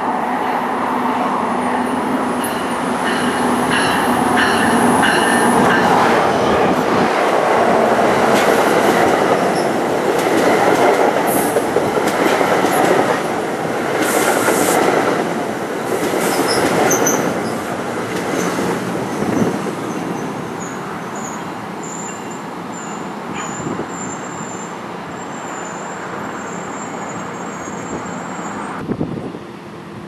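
NJ Transit Multilevel passenger train pulling into the station and rolling past close by, wheels clattering on the rails. It is loudest about midway, as the coaches go by. Thin high wheel squeals ring out early on and again through the later part as the train slows.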